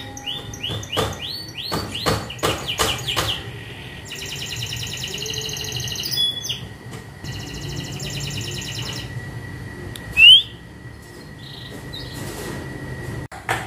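Young canary in full song: a run of repeated arched whistled notes, then fast rolling trills, with one loud upward-sweeping note about ten seconds in. A faint steady high tone runs underneath.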